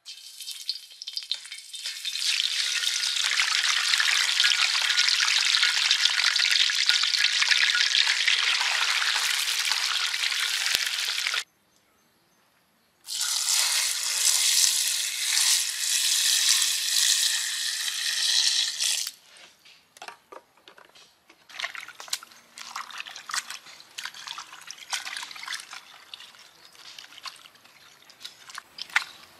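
A whole scored red fish sizzles loudly in hot oil in a metal wok for about eleven seconds, and the sound cuts off suddenly. After a short gap, water is poured in a steady stream into a bowl of vegetables for about six seconds. Then hands wash lettuce and vegetables in the water, with scattered splashes, drips and rustles.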